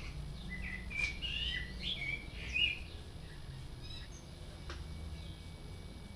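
Birds chirping: a run of short calls in the first three seconds over a steady low rumble, with a single click about two-thirds of the way through.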